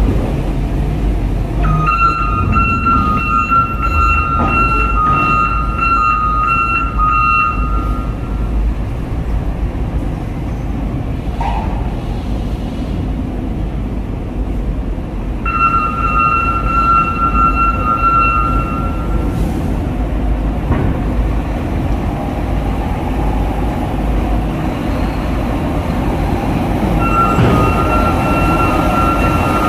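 Heavy diesel trucks running during vehicle loading onto a ferry, a steady low rumble. A high-pitched tone sounds over it three times, for several seconds each: about 2 seconds in, about 15 seconds in and near the end.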